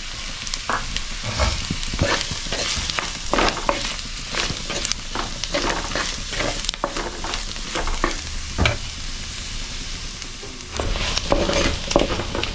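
A wooden spatula stirs drumstick pieces and green mango in spiced oil in an earthenware pot. It scrapes and knocks irregularly against the clay while the masala sizzles.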